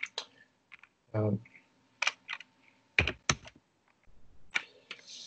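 Computer keyboard typing in short bursts of keystrokes, with a brief low vocal sound about a second in.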